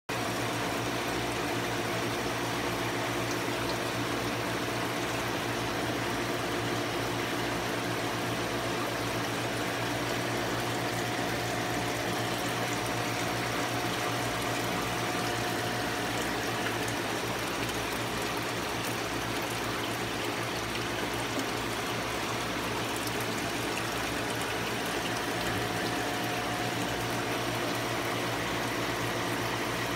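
Aquarium water pump and filter running: a steady watery hiss with a constant low hum.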